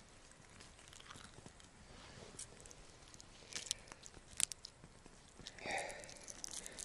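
Faint, scattered clicks, crunches and scrapes of food being prepared by hand, with a few sharper ticks about four seconds in.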